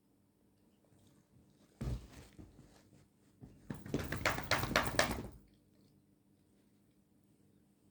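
A sleeping Doberman snores once, for about a second and a half, starting a little under four seconds in, as a run of rapid pulses. A short soft thump comes near two seconds in.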